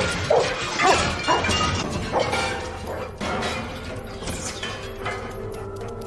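Dramatic background music with layered sound effects: several short swelling accents in the first two seconds, then sustained held tones.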